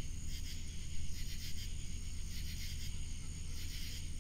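Crickets chirping in a steady, pulsing night-time chorus, over a constant low hum.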